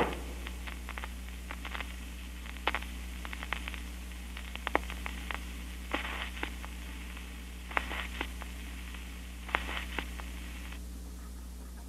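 Bozo children's phonograph with its needle still riding the spinning record after the music ends: surface crackle and scattered clicks through its small speaker over a steady low hum. The crackle stops near the end as the tonearm is lifted.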